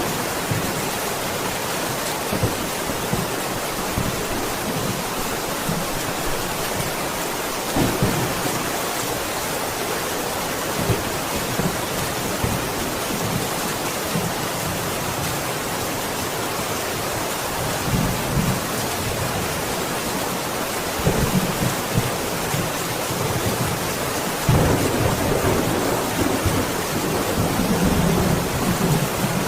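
Steady heavy rain falling, with low rolls of thunder rumbling under it. The longest and loudest rumble runs from about three-quarters of the way in to near the end.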